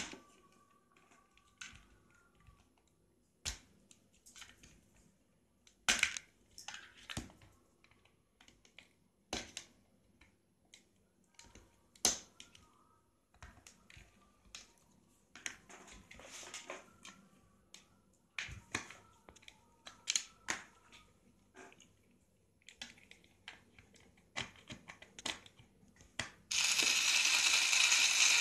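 Scattered clicks and knocks of a plastic blender base being handled and worked with tools. Near the end a cordless drill-driver starts suddenly and runs steadily at high speed, driving out a screw from the base. The drill is the loudest sound.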